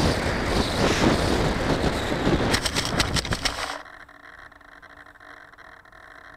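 Radio-controlled model airplane coming down into grass: a steady rush of air over the onboard camera, then a quick run of knocks and scrapes as the airframe hits and skids along the ground, cut off sharply about four seconds in when the plane comes to rest, leaving only a faint steady hum.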